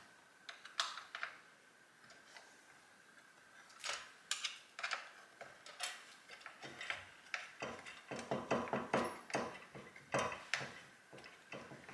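Hand tools clicking and tapping on the parts of a Husqvarna 555 chainsaw as its handle is unbolted, with a quick run of clicks in the second half.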